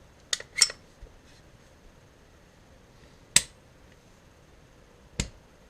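Sharp metallic clicks from a Canik TP9SA pistol being field-stripped as the slide is worked off the frame: two quick clicks near the start, a loud single click about three seconds in, and another near the end.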